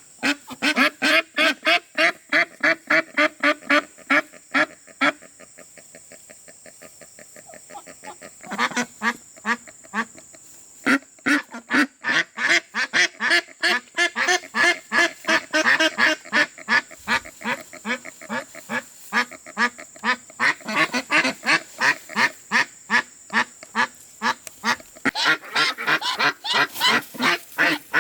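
A flock of domestic ducks quacking in rapid runs of short calls, several a second. After a few seconds they fall quiet briefly, then many ducks call over one another.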